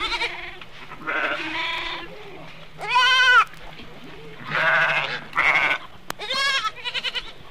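Sheep and goats, lambs and kids among them, bleating in a string of about seven calls. Some calls have a quavering tremble, and the loudest comes about three seconds in.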